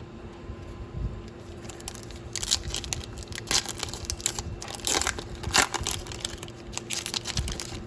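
A trading-card pack's wrapper being torn open and crinkled, in irregular crackles from about two seconds in, over a faint steady hum.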